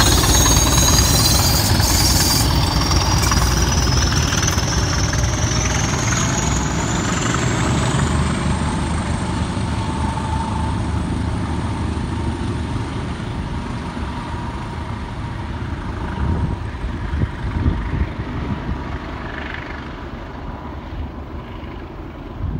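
Two Class 20 diesel locomotives running under power, their English Electric engines throbbing deeply, with a high whistle that rises in pitch over the first eight seconds. The engine sound then slowly fades as they move away.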